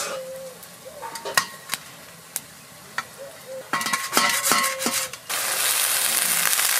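A knife cutting a steamed egg cake in a stainless-steel bowl: the blade clicks and scrapes on the steel, with a quick cluster of knocks that leave the bowl ringing. About five seconds in, a louder steady sizzle of onions frying in hot oil in a wok takes over.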